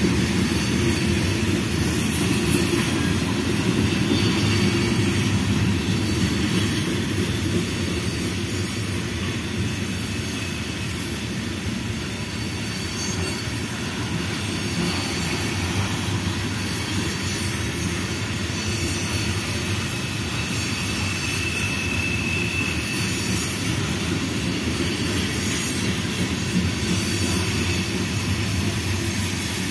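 Freight train of covered hopper cars rolling steadily past, its steel wheels rumbling and clattering on the rails. A faint, brief high wheel squeal comes about two-thirds of the way through.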